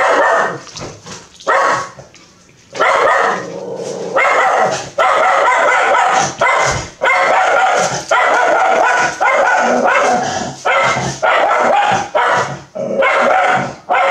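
A dog barking over and over in quick, loud runs.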